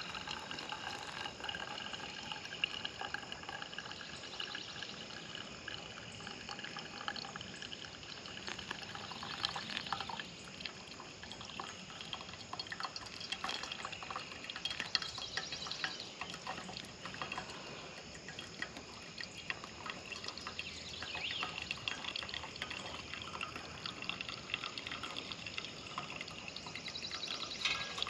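Water poured slowly from a small camp pot into a pour-over coffee dripper, trickling and dripping through the grounds.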